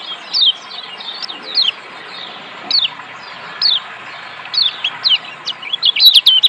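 Kecial kuning (Lombok yellow white-eye, a Zosterops) giving short, sharp falling 'ciak' chirps, about one every half second, over a steady rush of water. Near the end the chirps quicken into a fast, louder run.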